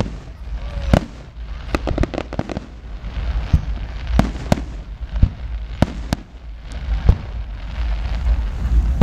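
Aerial fireworks shells bursting overhead: a quick cluster of bangs and crackles about two seconds in, then single bangs every half second to a second, over a steady low rumble.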